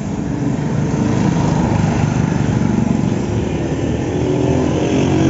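A small vehicle engine running close by, getting louder over the first second and then holding steady, its pitch wavering slightly.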